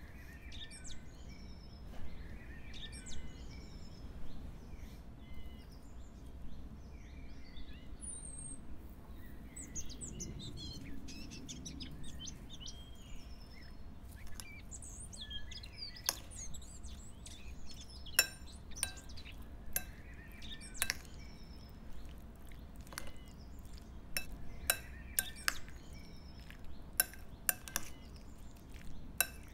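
A metal spoon clinking against a glass bowl while stirring a thick mixture; sharp clinks start about halfway through and come more often near the end. Small birds chirp in the background.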